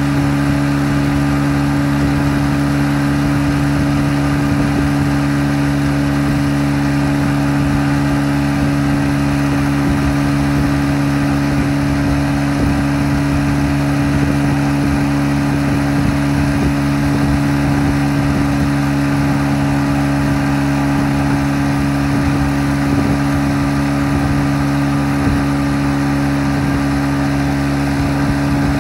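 Tow boat's engine running steadily while pulling a hydrofoil rider, heard from on board: a loud, even hum that holds one pitch throughout.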